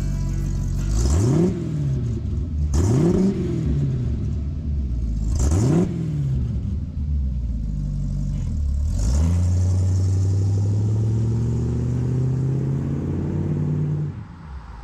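Ford 302 V8 with dual exhaust idling, then blipped three times in quick rises and falls. About nine seconds in it pulls away, the engine note climbing steadily as the truck accelerates, then the sound drops away sharply near the end.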